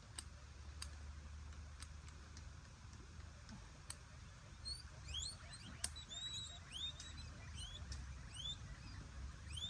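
Many short, high chirps in quick succession, like small birds, starting about halfway through. A few sharp clicks come earlier, and a low rumble runs underneath.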